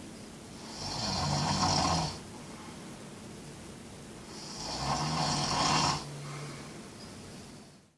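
A sleeping person snoring: two long snores about three and a half seconds apart, each a low buzz with a hissing breath. The sound cuts off to silence just before the end.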